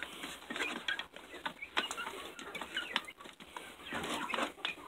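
A small flock of six-week-old chickens feeding, with short soft calls and clucks scattered through, along with light taps.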